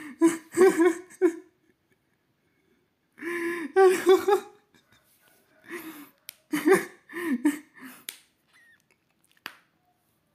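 A man laughing in three short bouts of quick breathy pulses, with a single sharp click near the end.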